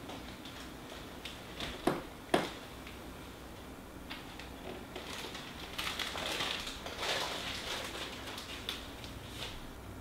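Birds at a backyard suet feeder: two sharp taps about two seconds in, then a fluttering rush of wingbeats from about five to eight seconds in as birds take off.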